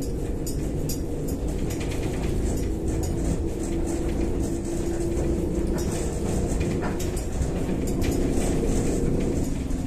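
Inside a Kyiv-12.03 articulated trolleybus under way: a steady low running rumble with a hum that holds for a few seconds mid-way, and scattered light clicks and rattles.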